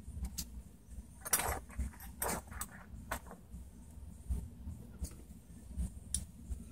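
Scattered handling noises on a workbench: two short rustling scrapes, then light clicks and low knocks as small hand tools are put down and picked up.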